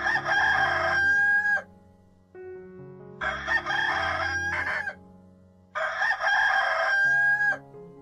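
Rooster crowing three times. Each crow lasts about one and a half seconds and ends on a held note; the crows start near the beginning, about three seconds in, and near six seconds in.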